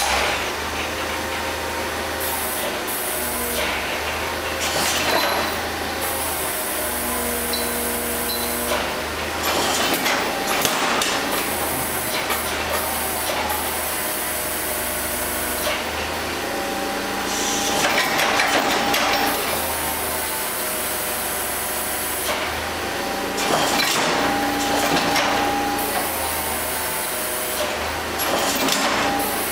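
Forklift engine running, with loud rattling and clanking several times as the lathe hanging from its forks in chains is shaken for a drop test of the hanger.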